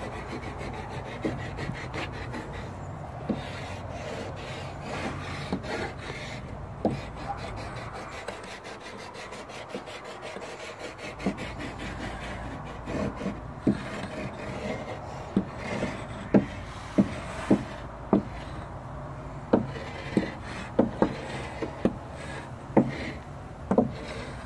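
Chalk rubbing and scraping across a plywood board as words are written on it. There are short, sharp strokes, few at first and more frequent from about halfway through.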